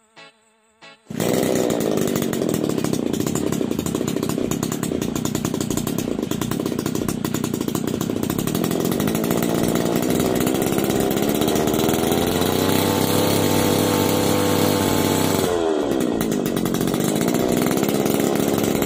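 Petrol brush cutter engine comes in suddenly about a second in and runs steadily while being warmed up. Its pitch slowly rises and then drops back sharply about three seconds before the end.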